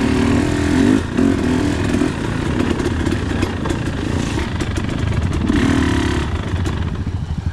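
Dirt bike engine running under throttle on an off-road trail, revving up at the start and again about six seconds in.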